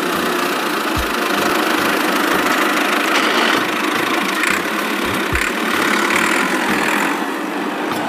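A motor running steadily, giving a dense, even mechanical drone with irregular low thumps underneath.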